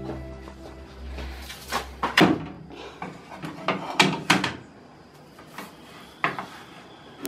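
Kitchen handling noise as a baked pizza is taken out of a small oven and lifted onto a plate with a spatula: a few sharp knocks and clatters, two close together about two seconds in, two more about four seconds in and one near the end.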